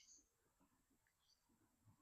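Near silence, with the last of some high bird chirps fading out at the very start.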